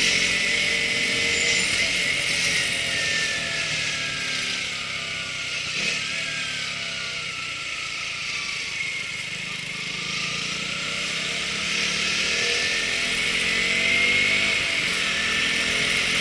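Sony HDR-AZ1 action camera's faulty-sounding microphone recording: a loud, harsh hiss with a steady whine, over an engine-like drone whose pitch slowly falls and then rises again. The uploader cannot tell whether the noise is a factory defect or typical of this model.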